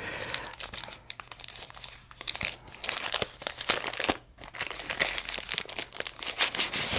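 Translucent protective wrapper crinkling and rustling as it is unfolded and pulled off a flashlight by hand, in irregular crackles.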